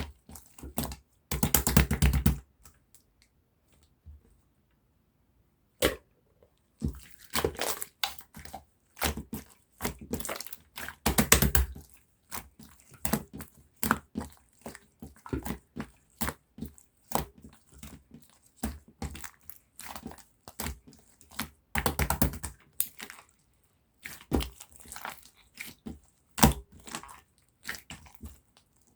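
Hands squishing and stretching a bubble-filled slime, giving irregular crackles and pops as trapped air bubbles burst. There is a quiet pause of about three seconds near the start.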